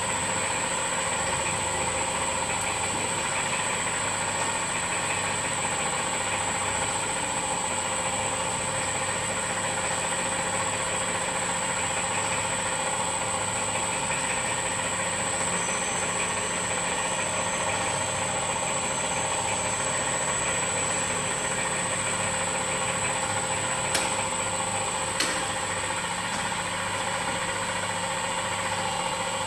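Boutelje Honey Auger running steadily as it grinds crystallised honey: a constant machine hum with a steady high-pitched whine. Two sharp clicks come near the end.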